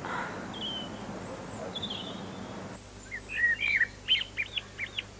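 Small bird chirping: two faint high calls in the first two seconds, then from about three seconds in a quick run of about a dozen short chirps.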